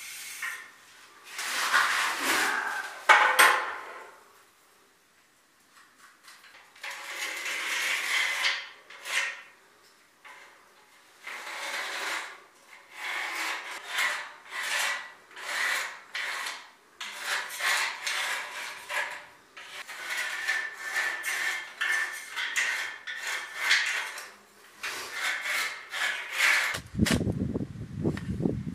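Repeated hand strokes scraping and rubbing across fresh cement plaster, in uneven bursts with short pauses. Near the end a lower, rougher scraping takes over as a shovel works a mix in a wheelbarrow.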